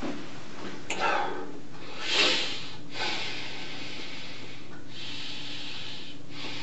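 A man breathing heavily through his nose, with two sharp sniffs about one and two seconds in, over a steady hiss.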